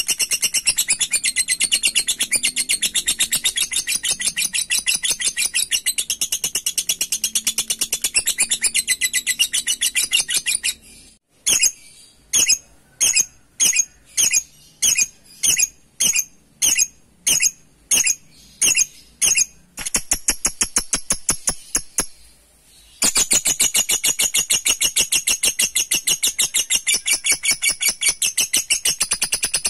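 Lovebird ngekek: a long, fast, high-pitched chattering trill. About eleven seconds in it breaks into a string of separate sharp calls, about two a second, then a short chatter burst and a brief pause before the long chatter resumes.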